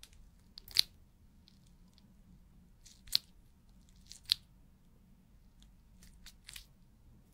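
Sharp, short clicks close to the microphone: three louder ones spaced over the first four and a half seconds, then a few fainter ones near the end.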